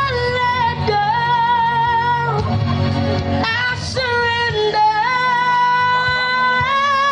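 A young male singer's high voice, amplified through a microphone, holding a series of long notes of a second or more each, over backing music.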